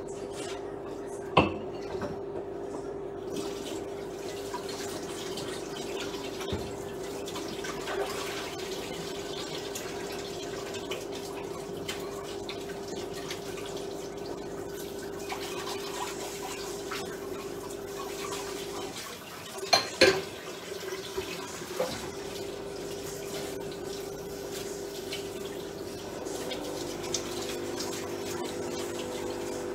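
A kitchen tap runs into the sink while dishes are washed, with clinks of crockery now and then and the loudest clatter about twenty seconds in.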